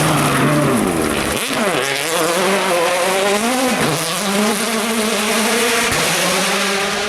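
A World Rally Car's turbocharged four-cylinder engine running hard through a rally stage. Its pitch drops sharply about a second and a half in and again near four seconds in, then climbs again after each drop.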